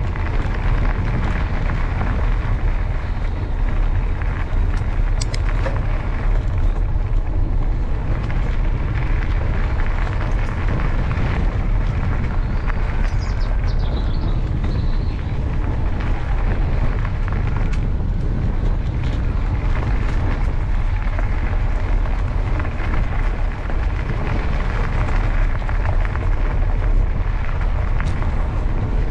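Wind buffeting the microphone and tyres rolling on the towpath as a mountain bike rides along steadily, a continuous low rumble.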